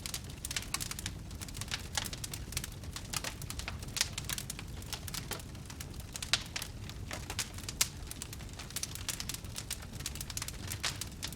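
Fire crackling: a steady low rumble of flame with many quick sharp crackles and pops throughout, the two loudest pops about six and eight seconds in.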